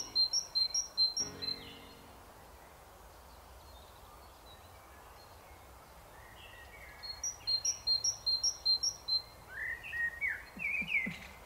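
Small birds chirping: a run of quick high chirps, about four a second, at the start, a lull of a few seconds with only faint background hiss, then another run of chirps and several short falling whistled notes near the end.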